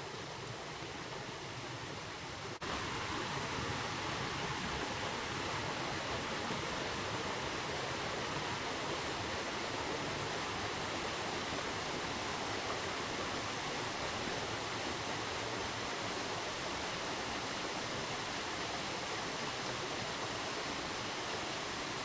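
Mary's Falls, a small creek waterfall, pouring with a steady rush of water that gets louder about two and a half seconds in.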